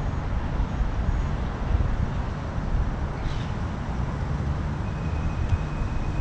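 Steady low outdoor rumble of distant road traffic and wind on the microphone, with a faint thin high tone coming in about five seconds in.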